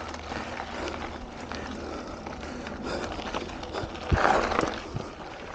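Mountain bike rolling over a dirt and gravel trail: tyres crunching on the surface with steady rattling and clicking from the bike. About four seconds in there is a thump and a short, louder burst of rattle.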